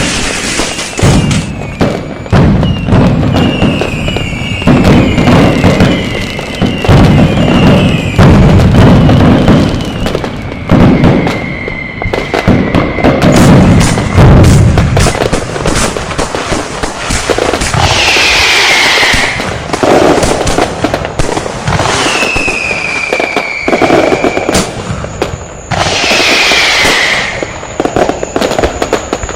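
Firecrackers and fireworks going off in a dense, continuous run of sharp bangs, with heavier booms through the first half. Whistling fireworks (whistle bombs) add falling whistles every few seconds, the longest about two thirds of the way in and again near the end.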